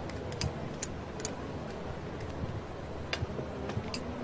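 Glass stirring rod clinking against the inside of a glass beaker of water while green peas are stirred, about six short clinks at uneven intervals over a low steady background hiss.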